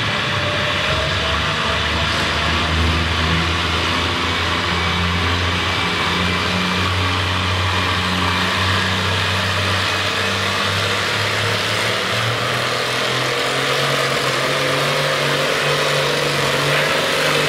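Massey-Harris 44 tractor engine running hard under load while pulling a weight-transfer sled, a steady low drone. Its pitch steps up slightly about two-thirds of the way through.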